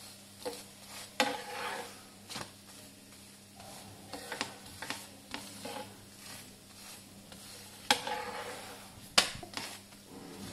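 A paratha being turned over on a hot tawa: sharp knocks and scrapes of a utensil against the pan, the loudest about a second in and twice near the end, over a light sizzle of oil. Turning it over repeatedly lets the inner layers cook through without the outside burning.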